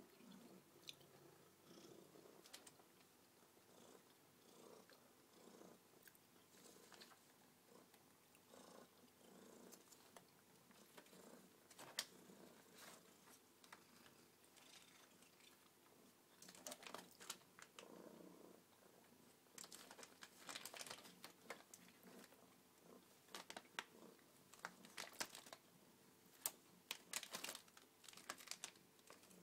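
Somali cat purring faintly, with scattered sharp crinkling and rustling clicks building up through the second half.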